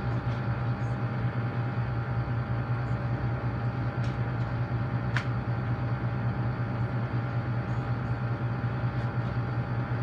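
Amana packaged window air conditioner running: a steady low compressor hum with even fan noise and a few constant higher tones. A brief tick about five seconds in.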